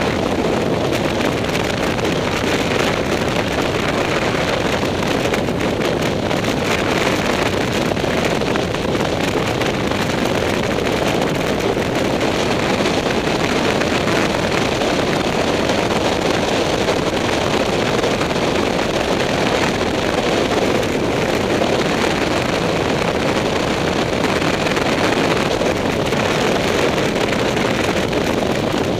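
Steady rush of wind over the microphone of a camera on a moving motorcycle, mixed with the motorcycle's engine running at an even cruising pace.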